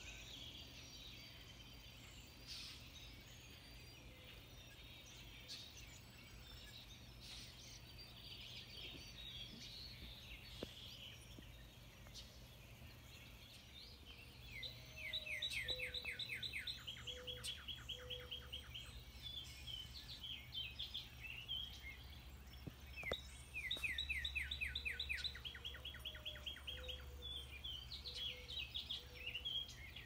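Songbirds singing at dusk: scattered high chirps at first, then a bird delivers two long songs of rapid, repeated slurred notes, starting about halfway through and again a few seconds later.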